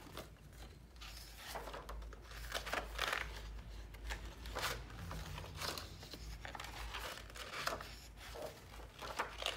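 Paper pages of a planner being handled and turned: a string of irregular rustles and crinkles.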